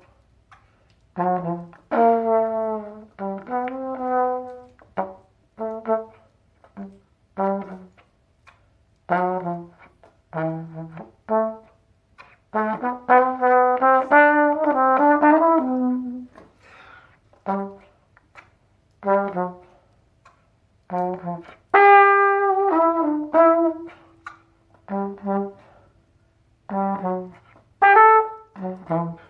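Trumpet playing a blues improvisation, short low notes punctuated between longer, higher phrases, with one long held note near the end.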